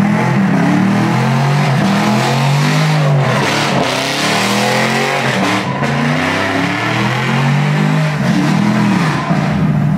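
Chevrolet Camaro doing donuts: its engine revving up and down over and over while the rear tires screech and spin on the pavement.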